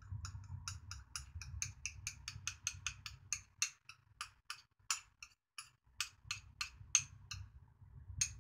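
A wire whisk ticks against the side of a metal saucepan as black sesame paste is stirred into warm milk. The quick, even clicks come about five a second, then slow and space out over the last few seconds, with one sharper click near the end, over a faint low rumble.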